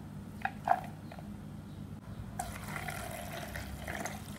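A few drips and small taps as wet China grass strands go into a plastic bowl, then, about halfway in, water starts pouring into the bowl in a steady stream.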